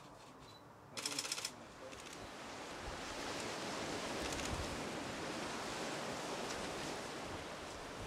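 A quick run of sharp clicks about a second in, then a steady wash of choppy sea and wind.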